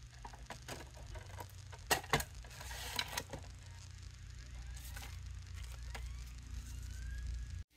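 Slim external CD drive's disc tray pushed shut by hand: a series of light plastic clicks and knocks, the sharpest about two seconds in. Later a faint rising whine as the drive spins up the CD, with paper rustling near the end.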